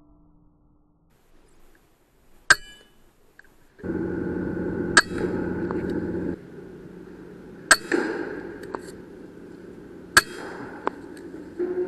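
Sharp cracks of a .22 PCP air rifle firing, four shots about two and a half seconds apart, each with a short metallic ring.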